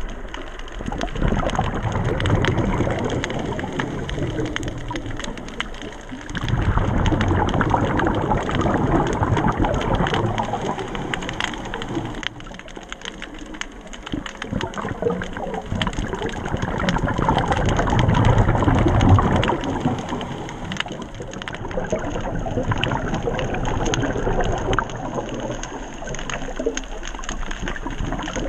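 Underwater sound heard through a camera housing: a dense crackle of tiny clicks over a rushing water noise that swells and fades every few seconds.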